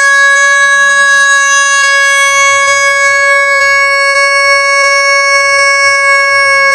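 Plastic toy horn, vuvuzela-style, blown in one long, loud note that holds its pitch without a break.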